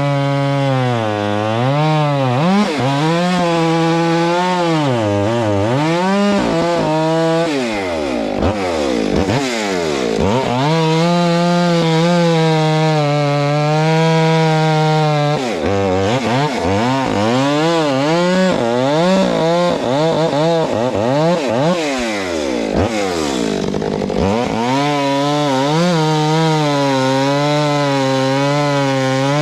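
Stihl MS 462 C two-stroke chainsaw bucking a hickory log, running at high revs. Its pitch sags as the chain bites into the wood and climbs back between bites, with the deepest drops about eight to ten seconds in and again around twenty-three seconds.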